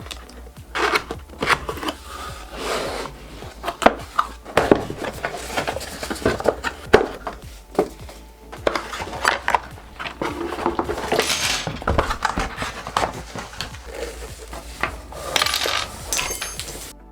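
Keyboard packaging and its contents being unpacked and handled by hand: repeated rustling swishes with sharp clicks and knocks as pieces are lifted and set down.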